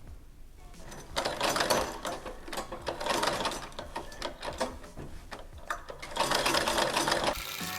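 Vintage treadle-driven Singer 128K sewing machine stitching in uneven spurts, its mechanism clattering, pausing and starting again as the treadle rhythm is found.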